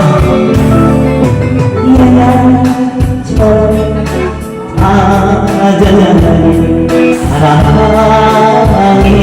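Live band music with a singer holding long notes over a steady bass and drum backing.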